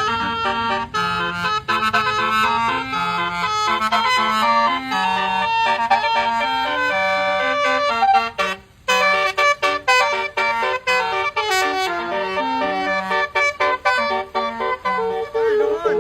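Basuri telolet musical bus horn playing a quick melody of stepped notes, with one brief break about nine seconds in.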